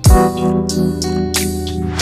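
Background music: guitar over a bass line, with a deep drum hit at the start.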